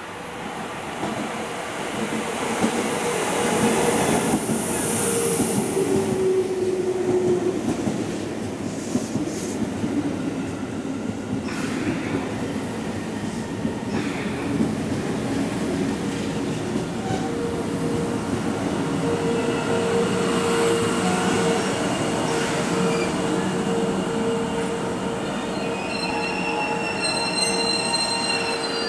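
JR East 651-series electric limited-express train running in along the platform and braking to a stop, with a high steady squeal from the brakes and wheels near the end as it halts.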